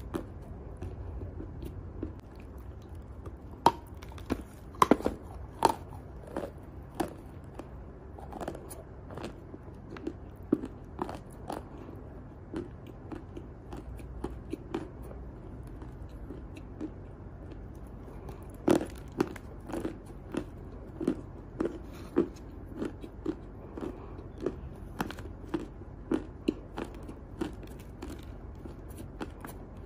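Dry lumps of chalk bitten and chewed close to the microphone: sharp cracking snaps as pieces break off, the loudest a few seconds in, then a steady crunching about twice a second through the second half.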